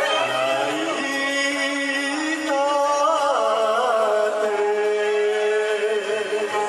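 Man singing a Japanese enka ballad into a microphone over a karaoke backing track, drawing out long notes with a wavering vibrato.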